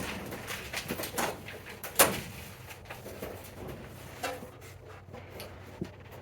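Scattered knocks, clicks and light scraping of greenhouse panels and frame parts being handled and slid into place, the loudest knock about two seconds in.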